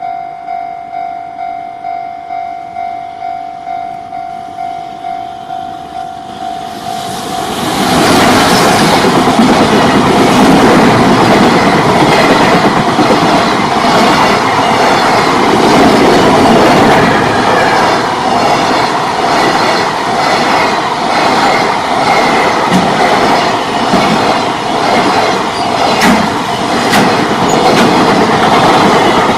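Level-crossing warning bell ringing, about two strokes a second. From about seven seconds in, a JR Freight train hauled by an EF210 electric locomotive passes close by: a loud, steady rumble of wagons with wheels clacking over the rail joints.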